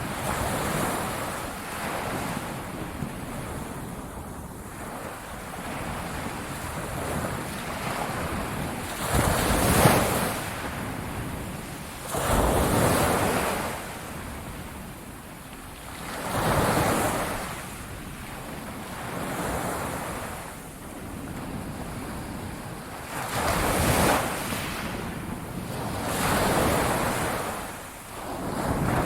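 Ocean waves breaking and washing on a beach, the surf swelling and falling back every few seconds, with wind.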